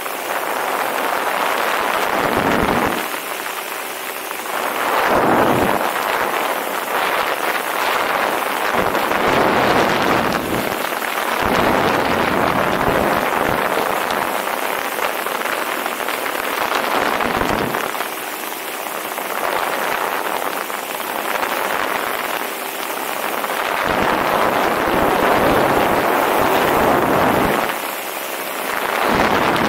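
Wind rushing over the camera microphone in paramotor flight, swelling and easing every few seconds, over a faint steady drone from the paramotor's Vittorazi Moster 185 two-stroke engine.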